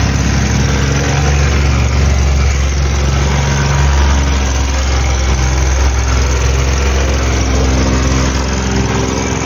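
Vibratory plate compactor running steadily: its small petrol engine drives the vibrating plate over a fresh layer of sand-and-gravel backfill to compact it. The sound is a loud, even engine hum that does not change.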